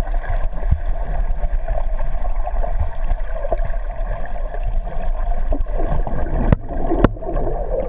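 Muffled underwater lake noise picked up by a GoPro in its waterproof housing: a steady low rumble with gurgling water and a faint steady hum. Two sharp clicks near the end.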